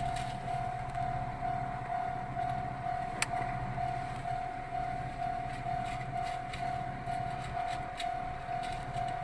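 Japanese level-crossing warning bell ringing, an electronic ding of one steady pitch repeating over and over, with a low steady hum underneath that stops shortly before the end and a single sharp click about three seconds in.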